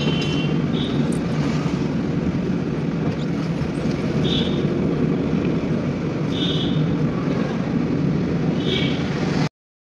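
Car driving along a road, heard from inside the cabin: steady engine and tyre noise, with a few short high chirps over it. The sound cuts out abruptly near the end.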